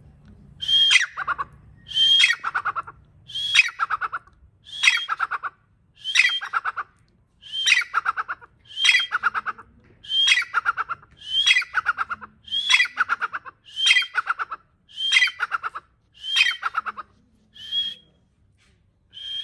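A bird calling over and over, about fourteen times at roughly one call every 1.3 seconds. Each call is a high note that slides down into a quick, stuttering run of lower notes. The last call near the end is fainter.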